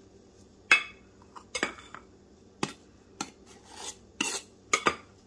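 A metal measuring cup and a knife clinking and scraping against a bowl of flour as a half cup of flour is scooped and levelled off. It is a series of sharp clinks, the loudest near the start, with a short scrape about four seconds in.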